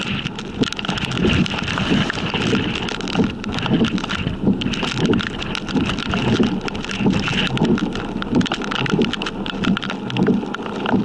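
Raindrops striking the vehicle the camera sits in, a dense run of small ticks over a steady rush of wind with gusty low swells.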